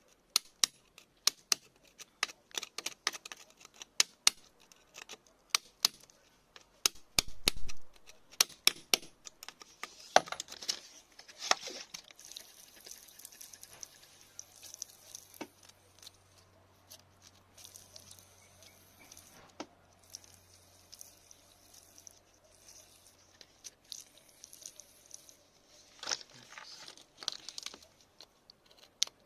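Rock and crystal pieces being picked at and handled, giving a rapid series of sharp clicks and knocks for the first dozen seconds, then quieter scraping and crumbling with a faint low hum, and a few more clicks near the end.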